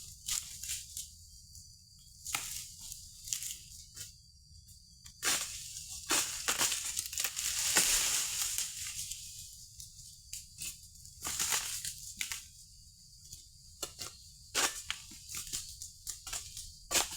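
Oil palm fronds being cut with an egrek pole sickle: irregular sharp snaps and crackles of fibrous frond stems, with a longer rustling swell about eight seconds in.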